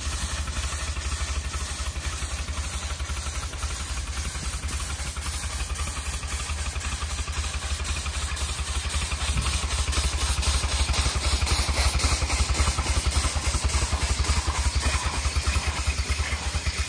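Three-cylinder live-steam 7¼-inch gauge BR 8P 'Duke of Gloucester' model locomotive running on a rolling road against its steam brake: a fast, even exhaust beat with steam hissing from the open cylinder drain cocks, over a steady low hum. The beat grows louder about nine seconds in.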